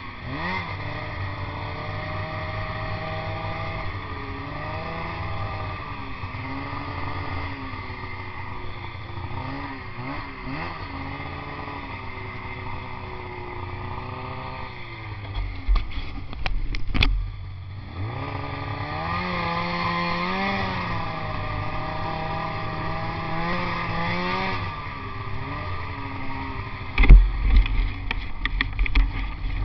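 Polaris snowmobile engine running under way, its pitch rising and falling as the throttle is worked. Heavy low thumps come in clusters about halfway through and again near the end.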